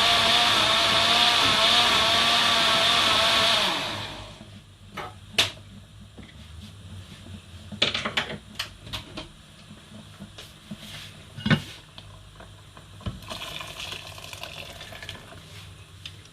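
Electric blender running as it blends peppers, its motor whine wavering, then switched off about four seconds in. Scattered knocks and clicks follow.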